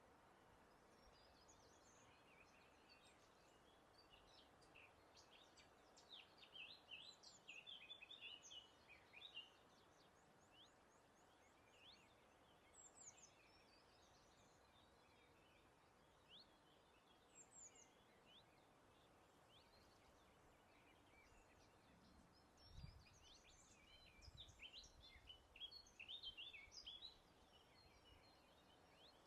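Faint songbirds twittering and chirping in two lively bouts, about six seconds in and again from about 22 seconds, with scattered single notes between, over a soft steady hiss. A brief low thud comes just before the second bout.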